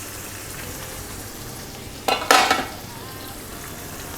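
Chettinad chicken sizzling steadily in its pan, with a brief loud clatter of metal against the pan about two seconds in, two quick strokes close together.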